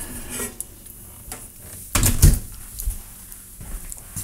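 Microwave oven door opened, a bowl lifted out and the door pushed shut with a thump about two seconds in, with light clicks and knocks around it.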